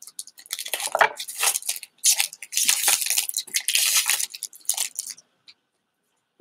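Foil wrapper of a Pokémon TCG Astral Radiance booster pack crinkling and tearing as it is ripped open by hand, in a run of crackles that stops about five seconds in.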